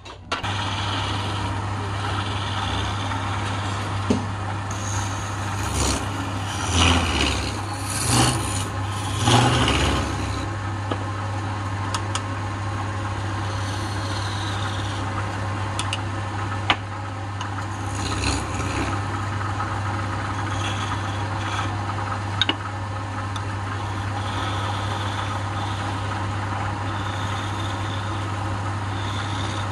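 Wood lathe running with a steady low motor hum while a hand-held chisel scrapes and cuts a spinning wooden blank. The scraping swells louder a few times between about six and ten seconds in, with a few sharp clicks later.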